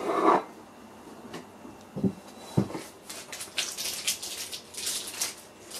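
Handling noise on a computer monitor's plastic back cover: a few dull knocks, then a stretch of scraping and rubbing as it is touched and moved.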